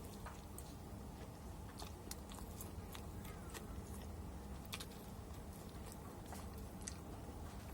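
Close-miked eating of chicken with sambal matah: chewing and biting, with scattered small crisp crackles.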